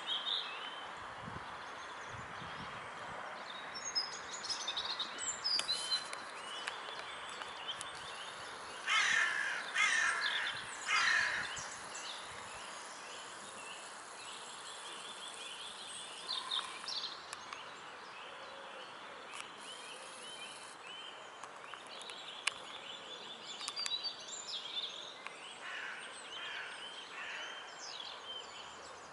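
Outdoor birdsong: many small songbird chirps throughout, with three loud, harsh calls in a row about nine to eleven seconds in, over a steady background hiss.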